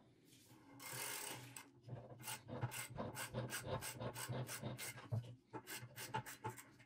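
Socket ratchet loosening the rusty retaining nut on a hand-cranked grinder's grinding wheel: a scraping stretch about a second in, then a quick run of sharp ratchet clicks, about four a second.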